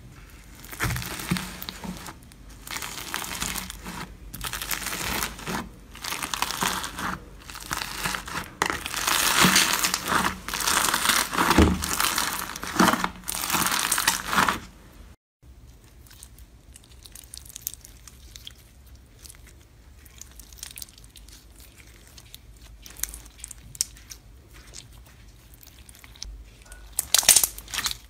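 Hands squishing crunchy slime mixed with foam beads, a dense crinkling crackle, loud for the first half. It breaks off suddenly about halfway. A quieter stretch of scattered small clicks and pops follows, and near the end there is a louder burst of crackling as clear slime full of pearl beads is squeezed.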